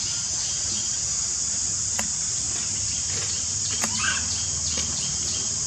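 Steady, high-pitched chorus of insects such as crickets or cicadas, with a few short clicks and a brief chirp about four seconds in.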